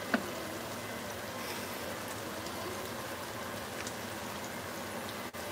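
A thick pork chop shallow-frying in oil in a skillet: a steady sizzle with faint scattered pops. A single sharp clink of cookware just after it begins.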